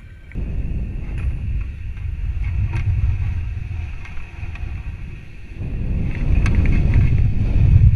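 Low rumbling on a sounding rocket's onboard camera microphone in flight, swelling, easing a little past the middle, then building again toward the end, with a few faint clicks.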